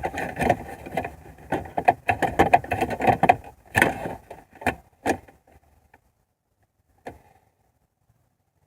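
A run of knocks, clicks and clattering, like parts and tools being handled during car repair work, stopping about five seconds in, with one more click about two seconds later.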